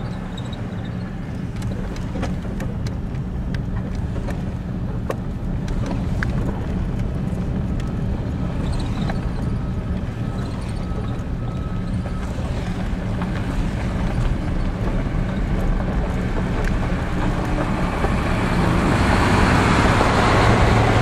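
Steady road and engine noise of a car driving, a low drone with rushing tyre and wind noise that grows louder over the last few seconds.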